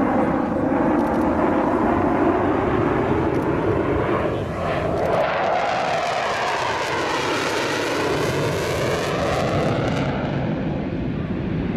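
Panavia Tornado's twin Turbo-Union RB199 turbofans in a steady jet roar as the jet flies past. A hollow, phasing sweep rises and falls in pitch through the middle of the pass.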